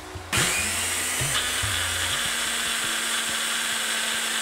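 Single-serve bullet-style blender switching on suddenly under half a second in and then running steadily at high speed, grinding fresh coriander, garlic, ginger, green chilies and salt into a thecha green chutney paste.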